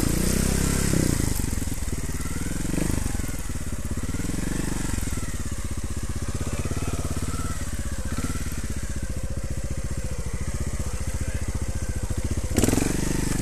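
Trials motorcycle engine running at low revs as the bike is ridden slowly through a section, with even firing pulses. The pitch rises and falls briefly a few times as the throttle is opened and closed.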